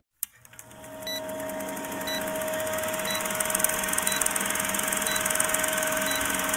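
Film-countdown sound effect: an old film projector's steady whirring rattle with a short high beep about once a second. A click starts it, and the whirr swells up over the first second.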